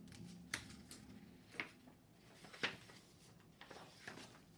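Pages of a picture book being turned by hand: several soft paper flicks and rustles, the loudest about two and a half seconds in.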